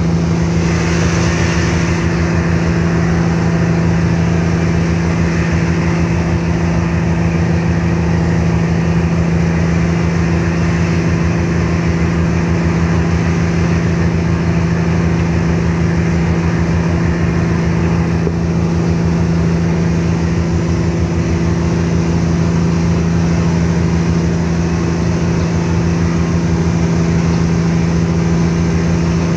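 Car ferry's diesel engines running steadily under way: a deep, even drone with a fast low throb, over a broad rush of wind and water.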